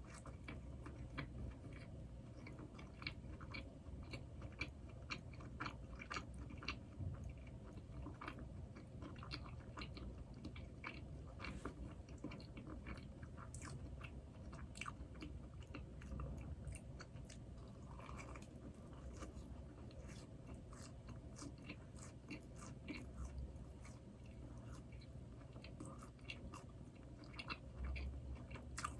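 Close-miked chewing and biting of Krispy Kreme doughnuts, with many small irregular clicks and crunchy mouth sounds.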